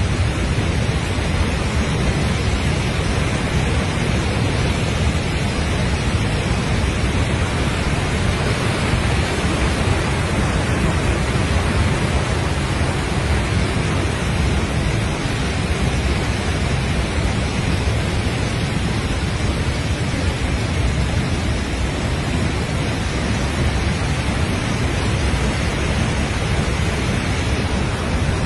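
Floodwater torrent rushing over a rock ledge: a loud, steady, unbroken rush of fast-moving water.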